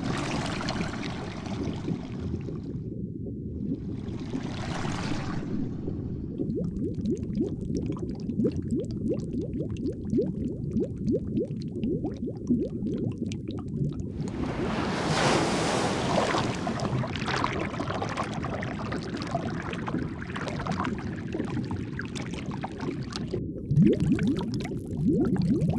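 Underwater ambience: a steady low rumble of water full of small bubbling crackles, swelling three times into louder bubbling hiss.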